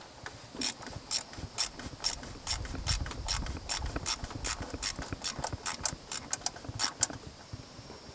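Stubby ratchet clicking in a steady run of strokes, about two to three clicks a second, as it tightens the plastic oil filter housing cap of a Ram Promaster engine.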